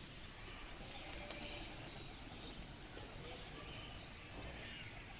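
Faint flapping of pigeon wings, with one sharp click about a second in.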